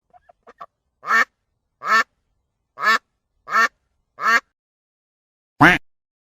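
Duck quacking: a few faint short calls, then five loud quacks spaced under a second apart, and a last, louder quack near the end.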